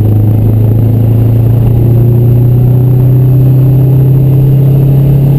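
Subaru EA81 1.8-litre flat-four engine mounted in the rear of a Fiat 500, heard from inside the cabin while driving. It runs loud and steady, its note climbing slowly.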